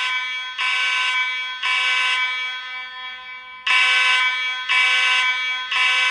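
Space Age AV32 fire alarm horn sounding a loud, buzzy tone in the temporal-three evacuation pattern: two rounds of three half-second blasts about a second apart, with a longer gap between the rounds.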